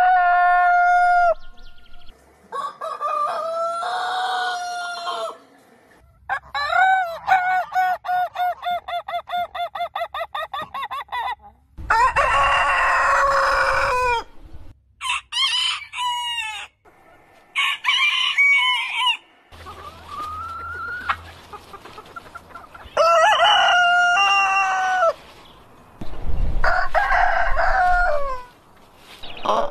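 Several roosters crowing one after another, each a drawn-out cock-a-doodle-doo, about eight crows in all, separated by short gaps. A few seconds in there is a stretch of quick repeated calls, about three a second.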